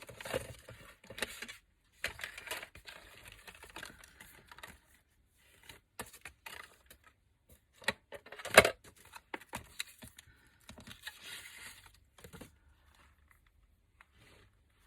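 Printed paper word toppers being sorted by hand on a craft desk: irregular rustling with light clicks and taps, and one sharper knock about eight and a half seconds in. It fades near the end.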